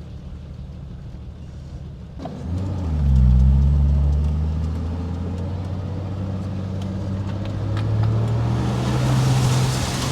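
A 4WD's engine revving up about two seconds in, then running steadily under load, building again near the end with a rising hiss.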